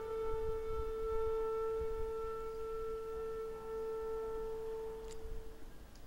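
Background music: one long held woodwind note that fades away near the end.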